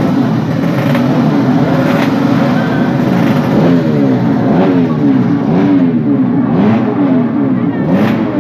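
Yamaha RX-King two-stroke single-cylinder engine, tuned up to 140cc for road racing, running steadily and then blipped up and down repeatedly from about three and a half seconds in during a tune-up.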